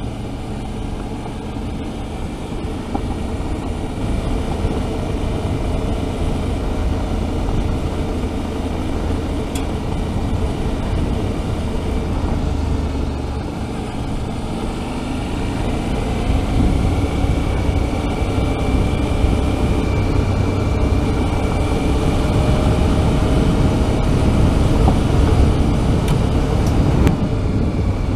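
Suzuki V-Strom 650's V-twin engine running steadily under way, with tyre noise on a gravel road and wind noise. It gets louder from about halfway through.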